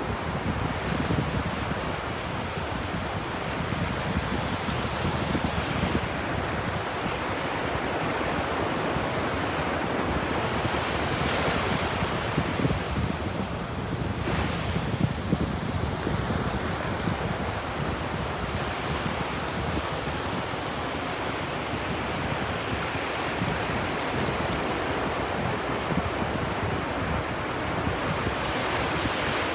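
Ocean waves breaking and washing on a beach in a continuous roar of surf, swelling and easing slowly, loudest about halfway through.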